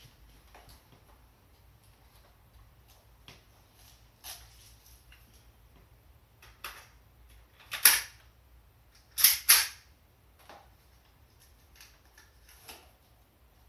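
Airsoft gas-blowback Glock 26 pistol firing three sharp shots: one, then a quick pair just over a second later. Fainter clicks of the gun being handled come before and after.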